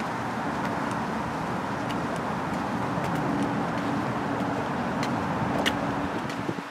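A motor vehicle's engine running steadily: a low rumble with a steady low hum, and a few light clicks over it.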